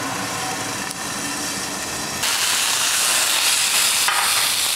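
Seared steak and oil sizzling in a very hot cast iron skillet: a muffled steady hiss that turns into a louder, sharper sizzle about two seconds in, as the glass lid comes off.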